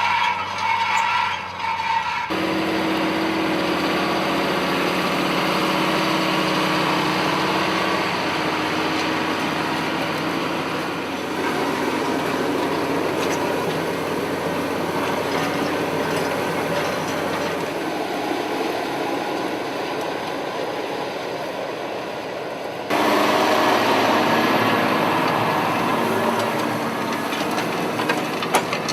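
Farm tractor engine running steadily under work. The sound changes abruptly about two seconds in and again near the end, as one tractor's sound gives way to another's.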